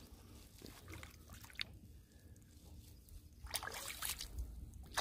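Shallow pond water splashing as a carp is let go at the bank and kicks away, then water dripping and flicking off wet hands. The splashing comes in a burst of several splashes from about three and a half seconds in.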